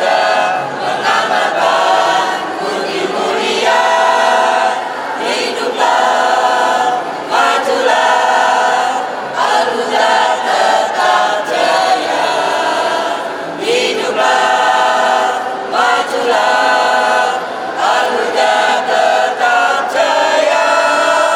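A choir of many voices singing together in sustained phrases.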